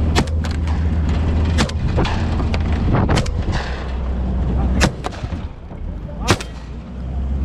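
About six shotgun shots fired at irregular intervals, over the steady low hum of the hunting vehicle's engine running, which fades about five seconds in.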